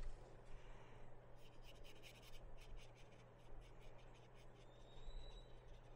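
Faint, quick scratches and rubs against a painted canvas, over a low steady hum.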